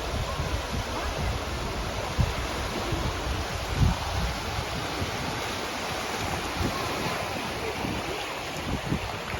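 Sea surf washing on a sandy beach, a steady rushing noise, with wind buffeting the microphone in irregular low rumbles.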